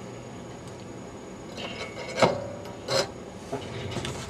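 Scraping and rubbing with two sharp clicks, about two and three seconds in, the first followed by a brief metallic ring: small tools being handled at a soldering bench.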